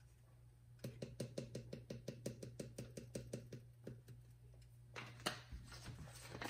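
Dried sage being shaken out of a spice jar into the pot: a quick, even run of faint taps, about seven a second, for several seconds, followed by a few looser, softer sounds.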